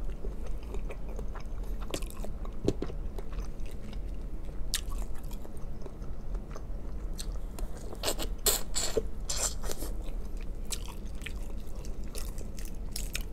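Close-up chewing of boiled jumbo shrimp: wet mouth smacks and small clicks, with a cluster of louder smacks about eight seconds in.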